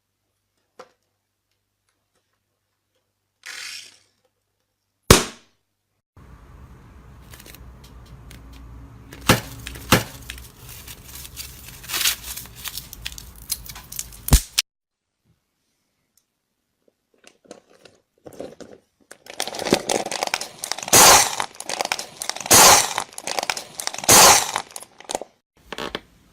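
Slime being squeezed and pressed by hand, crackling and popping with sharp snaps: a stretch of dense crackling, a pause, then heavier crackling near the end.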